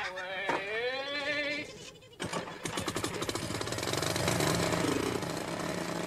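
A held, wavering vocal note dies away. About two seconds in, a small engine starts suddenly and runs with a fast, even rattle of firing strokes.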